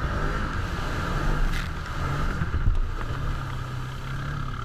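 Can-Am Commander 1000 side-by-side's V-twin engine running at speed on a gravel trail, heard from the driver's seat with tyre and trail rumble; the engine note steps a little lower past halfway. A couple of sharp knocks about a second and a half and two and a half seconds in.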